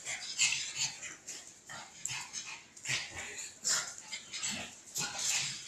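Two dogs, a pug and a larger merle dog, play-fighting, with short, irregular barks and yips throughout.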